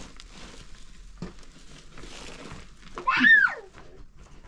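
A puppy gives one short, high whine about three seconds in that rises and then falls in pitch, over soft rustling and handling noises.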